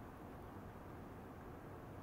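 Faint steady background hiss with a low hum: room tone.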